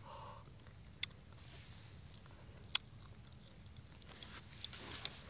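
Crickets chirping faintly in a rapid, even pulse, with two faint clicks of handling.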